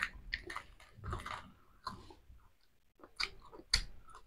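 Close-up chewing and biting sounds of people eating boiled half-incubated chicken eggs and herbs, with irregular small clicks and crackles.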